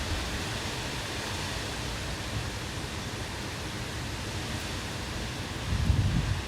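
Strong wind of about 60 mph blowing leaves and debris: a steady rushing hiss, with a louder low buffeting gust on the microphone near the end.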